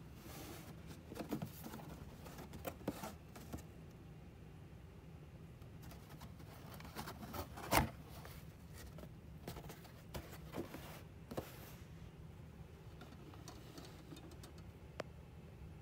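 Handling noise from a cardboard box being turned and moved over carpet: scattered faint rustles and scrapes, with one sharper knock about halfway through.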